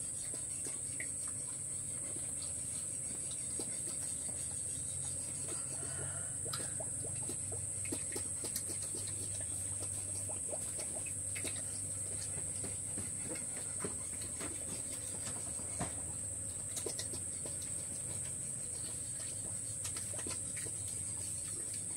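A steady, high-pitched drone of insects runs without a break. Scattered light clicks and taps come over it, from the piglets' trotters on the concrete floor and the sow eating from her trough.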